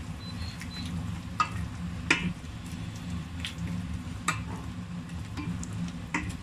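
Wooden spoon stirring hot tomato sauce in a non-stick pot, with about five sharp knocks of the spoon against the pot, over a steady low hum.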